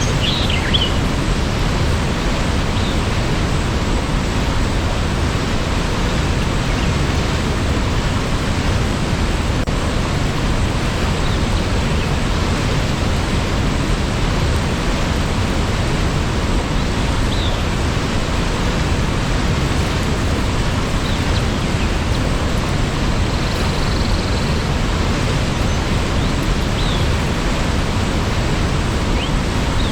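Steady rushing of a waterfall, an even wash of noise with no change in level. A few faint, short high chirps come through now and then.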